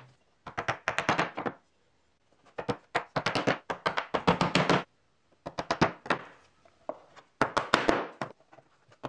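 Wooden maze wall blocks knocking against a hard board and against each other as they are set in place by hand, in about five quick flurries of knocks with short pauses between them.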